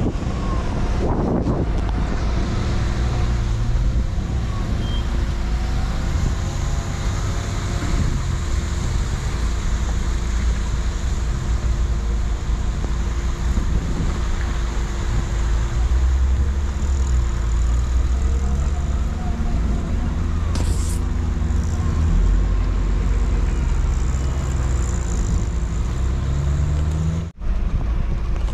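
4x4 off-road vehicle driving slowly over a rough dirt track: steady low engine rumble with rough tyre and road noise. The sound briefly cuts out near the end.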